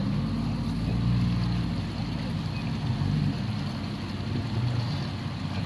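Jeep Cherokee XJ's engine running at low revs under load as it crawls through a muddy creek ditch, its pitch rising and falling slightly.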